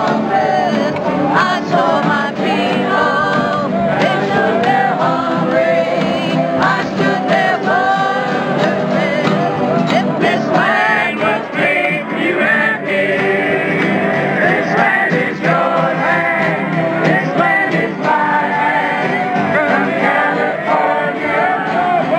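Group of people singing together to acoustic guitars.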